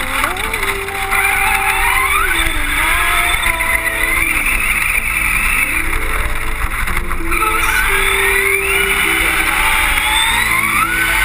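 Onboard sound of a high-performance RC car's motor revving up and down as the car drives across beach sand, its pitch repeatedly sweeping up and falling back.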